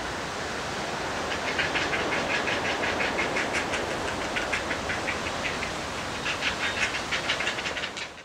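Great blue heron chicks begging at the nest: runs of rapid, dry clicking calls over a steady background hiss.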